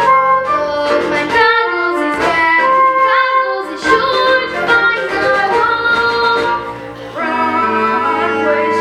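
Music from a stage-musical number: instrumental accompaniment with singing voices carrying a melody.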